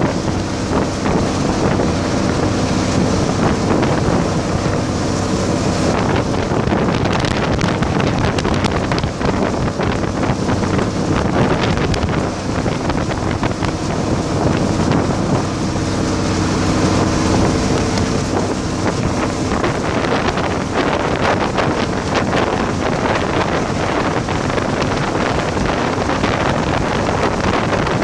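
Motorised bangka outrigger boat under way: its engine running steadily with a constant hum, mixed with wind buffeting the microphone and water rushing past the hull.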